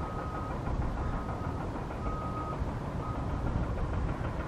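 Reversing alarm of a construction vehicle: a single-tone beep about once a second, fading out after about three seconds, over a low rumble.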